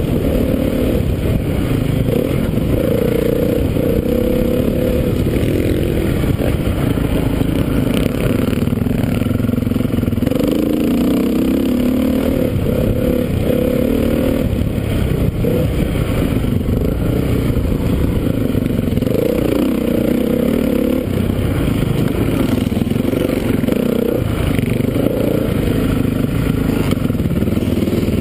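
2013 Honda CRF450's single-cylinder four-stroke engine revving up and down as the rider works the throttle around a motocross track, its pitch rising and falling every second or two.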